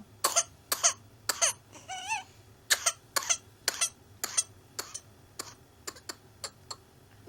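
A whooping cough (pertussis) coughing fit: a long run of short, sharp coughs, about two a second, getting weaker toward the end. About two seconds in, the coughing breaks for a high-pitched, wavering in-breath.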